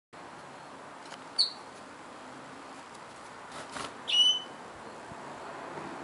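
Domestic canary giving two short call notes: a brief high chirp about a second and a half in, then a longer, louder note about four seconds in.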